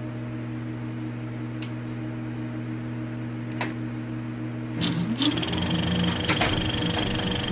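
Sound effect of an old film projector running: a steady low motor hum with a few sharp clicks. About five seconds in the sound gets busier, with a short rising whine and more clicks.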